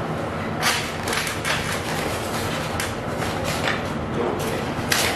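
Cardboard box, styrofoam insert and plastic wrap being handled as a coffee machine is unpacked: a run of irregular rustles and scrapes, with sharper ones about a second in and near the end.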